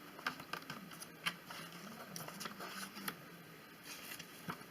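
Faint handling sounds of a Lightning cable being lifted out of its packaging: a few light clicks and scrapes, about one a second.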